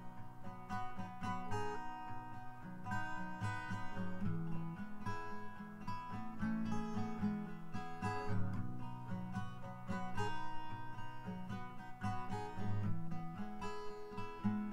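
Background music on acoustic guitar, a steady run of plucked notes.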